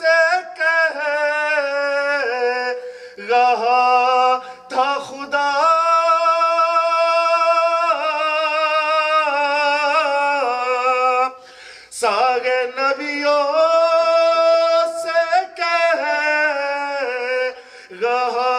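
A man singing an Urdu manqabat unaccompanied into a microphone, drawing out long held notes and wavering runs on each word. He breaks briefly for breath about eleven seconds in and again near the end.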